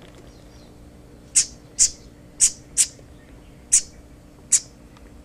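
A fallen nestling songbird gives six short, shrill chirps, starting about a second and a half in. The people watching can't tell whether the calls are begging for food or protest.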